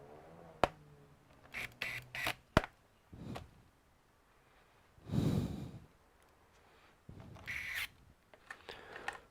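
Scattered sharp clicks and short clatters from a laptop and its parts being handled, with a soft rushing noise about five seconds in.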